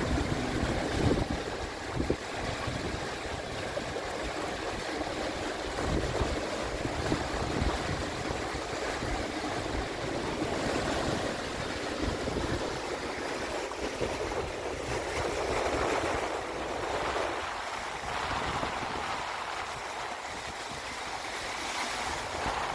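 Rough sea rushing and churning along a small trimaran's hulls and through its foaming wake, swelling and easing with the waves, with some wind noise.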